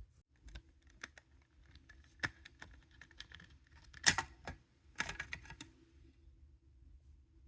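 Small sharp plastic clicks and snaps from handling and unclipping parts of a PS5 DualSense controller's casing during disassembly. The loudest snap comes about four seconds in, with a quick run of clicks about a second later, over a faint steady hum.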